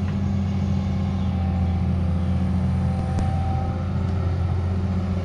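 Backhoe's diesel engine running steadily with a deep hum, and one sharp click about three seconds in.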